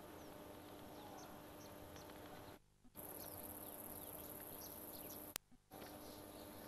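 Faint outdoor ambience with scattered short chirps of small birds over a faint steady hum. The sound cuts out briefly twice, with a sharp click just before the second break.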